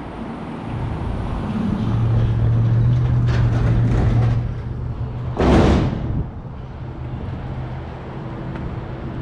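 A road vehicle's engine going by: a steady low hum that swells, holds for a few seconds, then fades. A short loud whoosh about five and a half seconds in.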